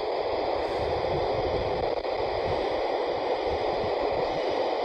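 Steady static hiss from a handheld CB radio receiving an empty channel 27 after a call, with no station answering.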